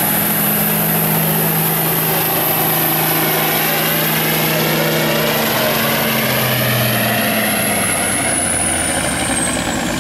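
Diesel semi truck pulling a weight-transfer sled under full load, its engine running hard and loud with a thin high whistle above it. From about halfway the engine note steps down and, near the end, the whistle starts to fall as the pull winds down.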